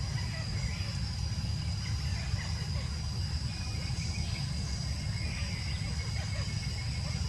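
Outdoor ambience: a steady high-pitched insect drone over a constant low rumble, with a few faint chirps.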